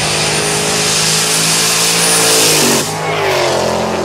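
Car engine running at high revs, its pitch creeping up and then falling sharply about three seconds in.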